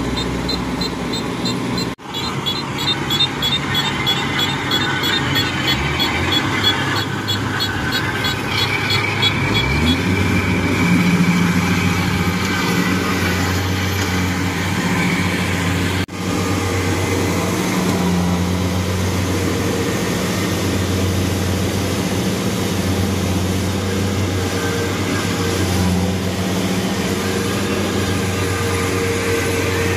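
Diesel engines of Kubota DC-70 Plus crawler combine harvesters running under load as the machines work through deep mud. About ten seconds in, one engine revs up and then holds a steady higher speed. A fast, light ticking sounds over the first several seconds.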